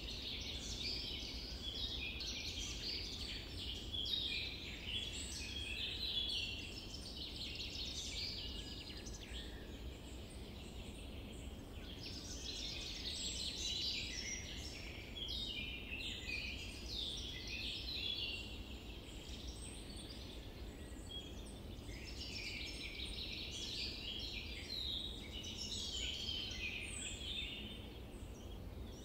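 A chorus of many birds chirping and trilling over one another, short high calls overlapping without a break, above a steady low rumble.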